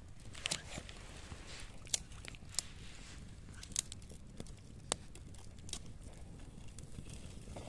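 Scattered sharp clicks and light crunches, about six spread unevenly over several seconds, over a steady low rumble.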